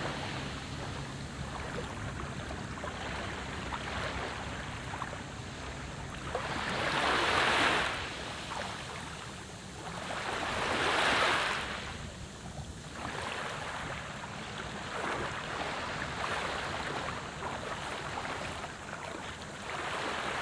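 Sea waves breaking and washing around a wader in the shallows: a steady rush of surf with two louder swells, about seven and eleven seconds in.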